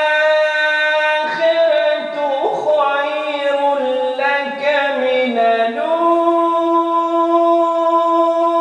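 A man reciting the Quran in a melodic tajweed style, one unaccompanied voice. He holds a note, then runs through ornamented turns that step downward, then settles into a long held note about six seconds in.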